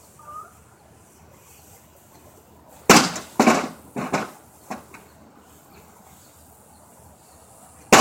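Two hard bat strikes on a microwave oven's metal casing, with a wooden board lying on it. A sharp crack comes about three seconds in, followed by a few smaller clattering knocks, and another hard hit comes right at the end.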